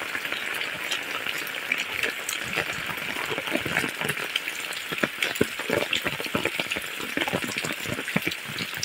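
Heavy rain falling steadily on clay-tile roofs and a wet concrete lane, with frequent sharp splats of large drops landing close by.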